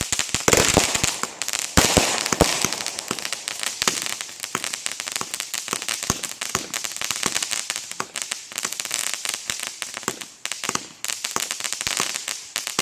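Consumer fireworks going off: a few sharp bangs in the first couple of seconds, then a dense, rapid crackling over a steady hiss.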